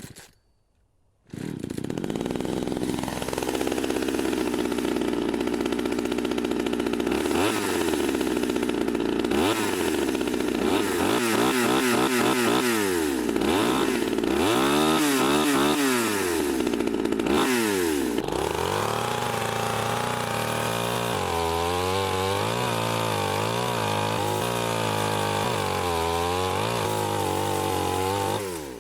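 Chainsaw starting up about a second in and running, then revved up and down over and over. Later it runs at a lower, wavering speed, and it cuts off at the very end.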